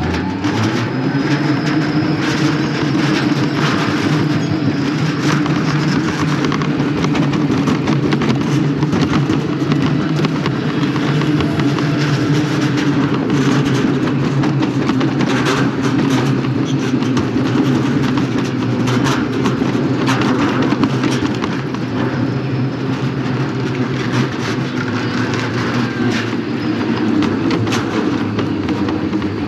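A summer toboggan bobkart running along its track, heard on board: a steady low rumble with scattered clicks and rattles.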